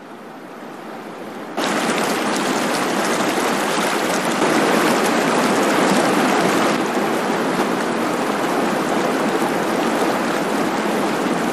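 Rushing mountain stream, white water pouring over and between boulders in a steady wash of noise. It starts faint and growing, then jumps abruptly louder about a second and a half in.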